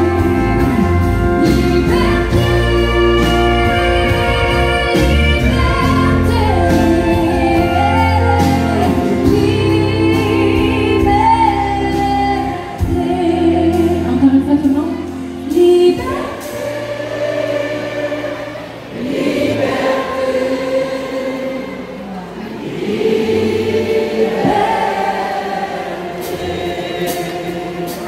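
A country band playing live, with a woman singing lead over electric guitar, acoustic guitar and bass. About halfway through the band drops back and the bass falls away, leaving mostly singing over light accompaniment for the rest.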